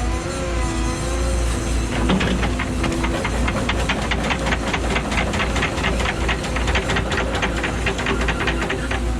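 Cat 314E excavator's diesel engine running under hydraulic load, its pitch shifting, then from about two seconds in a rapid, even run of metallic clanks, several a second, over the engine.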